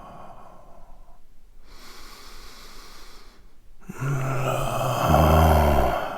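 A man's laboured, sick-sounding breathing. A faint airy breath comes first, then about four seconds in a louder, rasping breath with a low voiced groan that lasts about two seconds.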